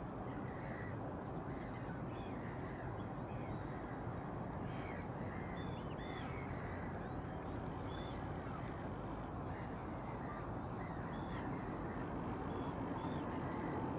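Birds calling over and over in short, arched calls, scattered through the whole stretch over a steady low background rumble that grows a little louder near the end.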